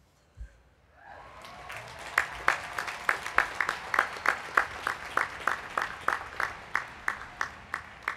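Outdoor crowd applauding, starting about a second in, with sharp, evenly spaced claps standing out above the rest at about three a second.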